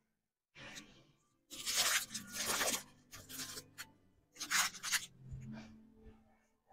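Close rustling and rubbing noises in several bursts: a long one about two seconds in and a shorter one near five seconds. The sound is like things being handled right by the microphone.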